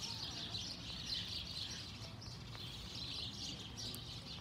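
Many small birds chirping at once in a dense, continuous chorus, over a low background rumble.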